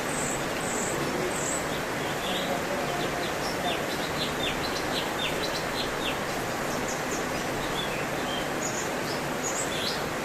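Cucak cungkok singing: a scattered run of short high chirps and quick down-slurred notes, over a steady background hiss.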